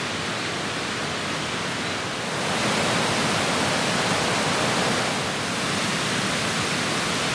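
Rushing water of a rocky mountain river, a steady rush that gets a little louder about two and a half seconds in.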